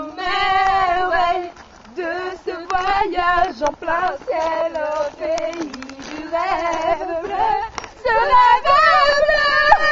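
Female voices singing a song together, unaccompanied, with long held notes.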